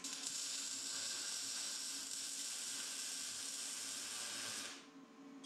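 Spray paint hissing in one steady burst that stops sharply near the end.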